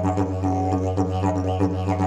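Fiberglass triple-slide didgeridoo played in a steady low drone, with the overtones above it shifting in a quick rhythmic pulse.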